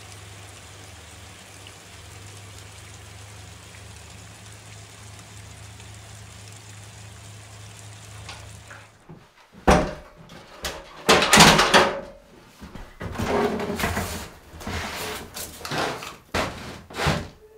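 A steady low hum with faint hiss. About nine seconds in, it gives way to a run of knocks and thumps, with the loudest bangs a couple of seconds later.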